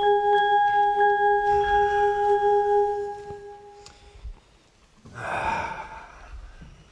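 A sustained bell-like ringing tone, steady for about three seconds and then fading out. About five seconds in there is a short noisy rush lasting under a second.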